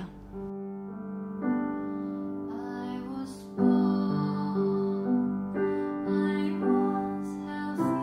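Steinway grand piano playing slow, sustained chords, with a woman's singing voice with vibrato rising over it at times.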